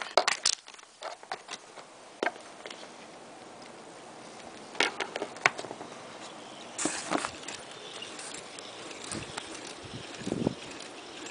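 Irregular clicks and rustles of a wire lead being handled and reconnected to a home-built Newman motor's circuit, with a few sharp clicks in the first second and scattered single clicks after. Near the end comes a short, low handling bump.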